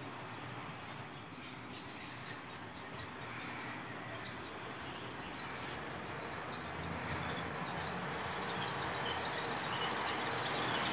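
HO scale model train running on its track: a steady rolling rattle of small wheels on rails and motor, growing louder towards the end as the train comes closer.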